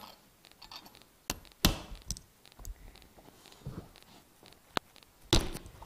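Nokia flip phone being smacked hard against a hard surface: a few sharp knocks, the two loudest about a second and a half in and near the end, with lighter taps between. The phone does not break.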